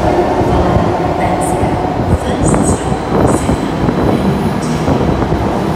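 Sydney Trains double-deck electric train running into an underground station platform: a steady, loud rumble of wheels and motors echoing in the tunnel, with several brief high wheel squeals.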